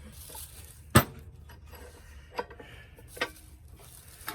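Metal clicks and clanks from a Craftsman bench vise being worked open: one sharp clank about a second in, then a few lighter clicks.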